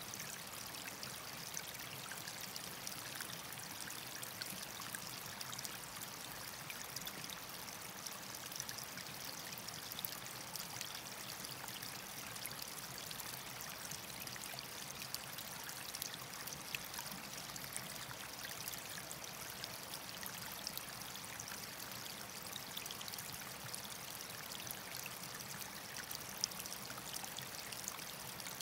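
A small woodland trickle of water falling in thin streams from a mossy rock ledge into a shallow pool and running on over pebbles: steady light splashing and trickling, with many small drips and splashes.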